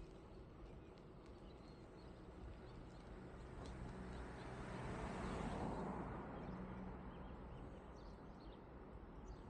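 Steady low tyre and road rumble from a moving bicycle, with faint scattered clicks. A car passes in the other direction, its noise swelling to a peak about five and a half seconds in and then fading.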